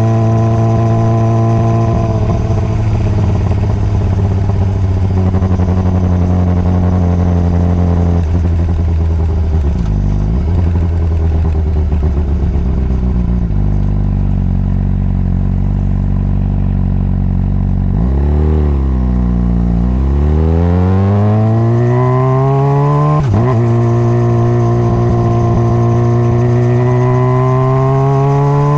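Honda CBR600RR's 600 cc inline-four running under way at mostly steady revs, easing off briefly twice. From about two-thirds of the way in it pulls away with revs rising, drops briefly on a quick upshift, then keeps climbing.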